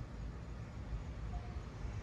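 Outdoor ambience: an uneven low rumble under a steady hiss, with one short, faint high note about a second and a half in.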